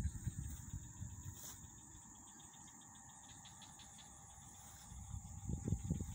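Insects in reed swamp vegetation trilling, a steady high-pitched drone with a fast pulsing chirr in the middle. Low rumbling gusts come at the start and again near the end.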